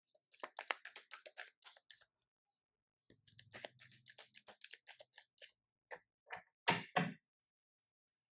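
Tarot deck being shuffled by hand: a quick run of crisp card flicks and snaps, with two louder slaps of the cards about seven seconds in.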